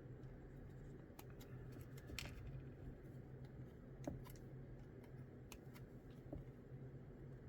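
Faint scattered clicks and snips of plastic model-kit sprues being handled and parts clipped off with sprue cutters, over a steady low hum.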